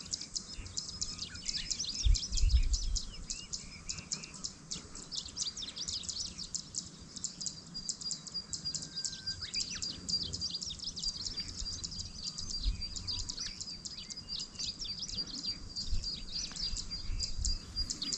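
A dense chorus of high-pitched clicking and chirping calls from wild animals in the grassland. A steady high-pitched trill joins about eight seconds in, and a low thump of wind or handling on the microphone comes about two seconds in.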